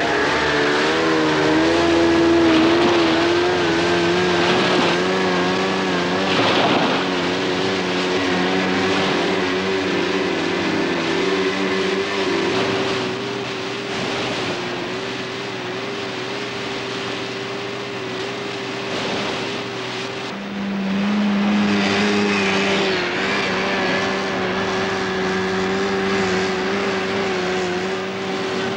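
Outboard motors of a group of small landing boats and inflatable assault boats running at full speed, a steady multi-pitched engine drone that wavers slightly. About twenty seconds in, a louder, lower engine comes in close.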